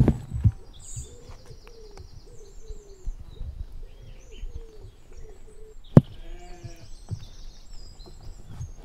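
Black-faced sheep at a trail camera: a thump at the start and a sharp click about six seconds in, followed by a short low call. Faint chirping runs underneath.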